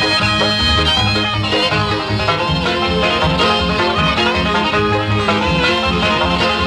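Background bluegrass-style music with banjo and guitar.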